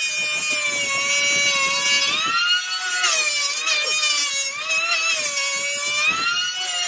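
Electric power tool working wood: a high motor whine that sags and recovers in pitch as the tool is loaded and eased, with a rough cutting noise underneath for the first couple of seconds and again in short patches.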